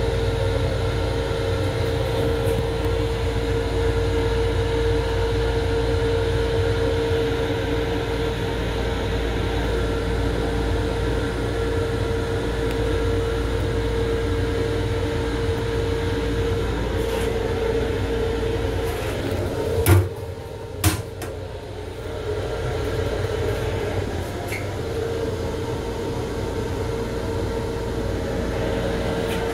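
Steady running noise inside an LIRR M7 electric railcar's restroom: a constant hum over a low rumble. Two sharp knocks come about twenty and twenty-one seconds in.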